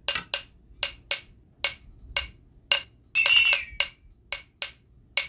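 A hand-struck improvised percussion instrument played in a loose, irregular rhythm, about two to three strikes a second: sharp clinks with a brief high ring, like metal or glass being tapped. A little past three seconds in comes a short, louder, high wavering tone.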